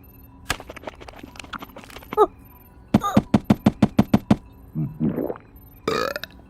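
Cartoon sound effects: a sharp hit about half a second in and a brief falling squeak near two seconds. Then comes a quick run of about ten knocks, and short pitched cartoon-character cries that glide up and down near the end.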